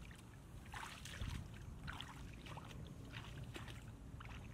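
Footsteps wading through shallow water and wet grass: a run of splashing, swishing steps, one roughly every half second to second.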